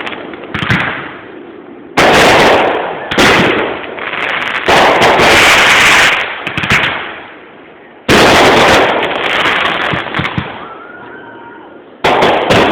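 Fireworks exploding: about six sudden loud booms one to four seconds apart, each trailing off in a long rolling echo, with a stretch of continuous bursts lasting about two seconds midway.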